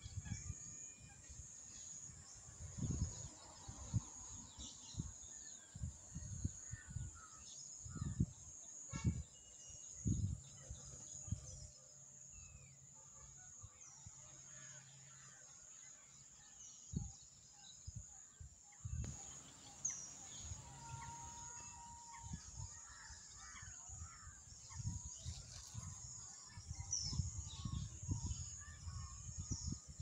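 Outdoor pond ambience: wind buffeting the microphone in irregular low gusts, with faint scattered chirps of small birds and a steady high-pitched tone in the background.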